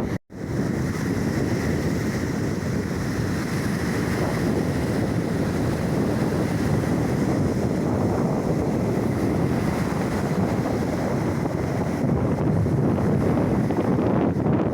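Black Sea surf washing steadily onto the shore, with strong wind buffeting the microphone. A split-second cut-out breaks the sound right at the start.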